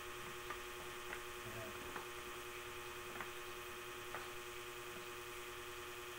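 Steady electrical hum, with a few faint soft clicks as plastic PVC fittings and tubing are handled and pushed together.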